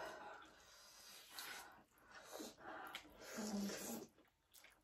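People slurping noodles, drawing them in noisily in several bursts; the longest runs about a second, from around three seconds in.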